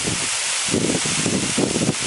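Steady rushing of a rain-swollen waterfall, with wind buffeting the microphone in uneven low gusts that let up briefly about half a second in.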